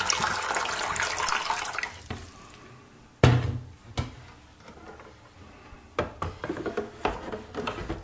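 Water pouring from a filter jug into an espresso machine's plastic water tank, filling steadily, then tailing off about two seconds in. Then comes a sharp knock and a click, and near the end a run of small clicks and knocks as the tank is pushed home and the front panel closed.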